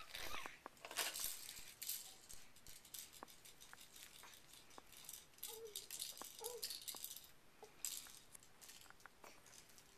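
Faint rustling and scattered small clicks of a baby crawling across a blanket, with two brief soft baby vocal sounds about halfway through.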